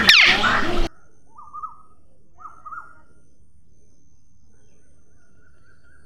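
Loud, harsh parrot screeching, including one sharp downward-sliding screech, that cuts off abruptly just under a second in. It is followed by two short bursts of softer bird call notes about a second apart, then a faint steady background.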